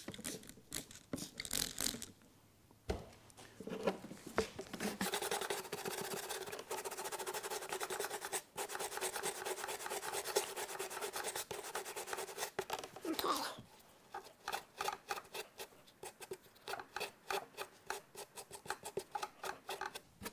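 A stiff hand brush scrubbing a degreaser-soaked piece of car carpet. Quick strokes at first, then after a short pause a fast continuous scrubbing for several seconds, then separate short strokes near the end.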